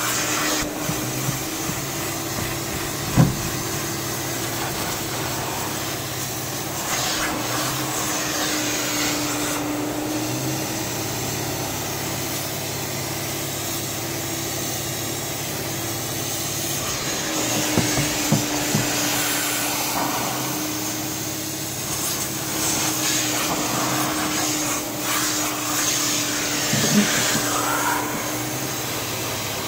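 Upholstery extractor's vacuum motor running steadily while its wand is pulled across a cloth car seat, suction hissing as it draws the wash water out of the fabric. A few sharp knocks from the wand being handled.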